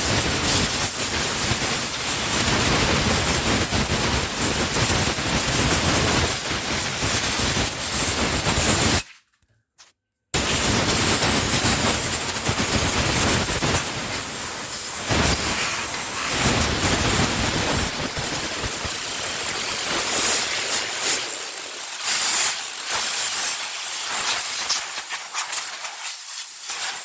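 Compressed-air blow gun blasting dust out of an opened microwave oven, a loud steady hiss. It cuts off for about a second a third of the way through, then starts again, growing thinner and less full toward the end.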